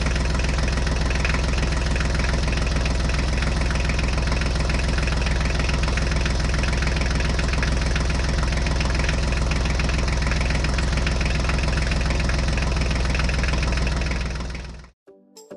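Tractor engine idling steadily with a low, even chug. It cuts out about a second before the end.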